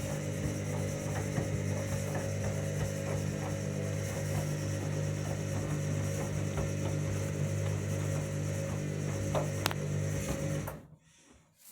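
Washing machine drain pump humming steadily with light rattling as it pumps out the wash water at the end of the main wash, then stopping abruptly near the end.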